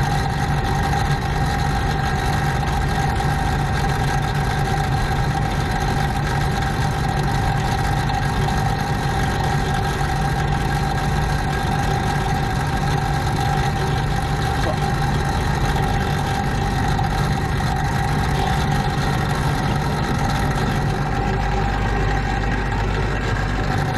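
AAON rooftop HVAC unit running with its motors energized: a steady mechanical drone with a constant mid-pitched whine over a low hum. The lowest part of the hum shifts about 21 seconds in.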